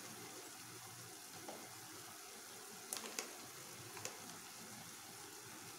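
Chopped onions frying in hot oil in a pot, a quiet steady sizzle, with a few short clicks about three and four seconds in.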